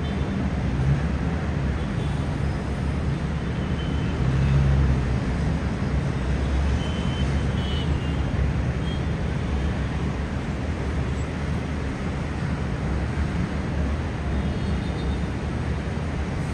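Steady hum of dense city road traffic heard from high above, briefly louder about four to five seconds in, with a few faint short higher tones over it.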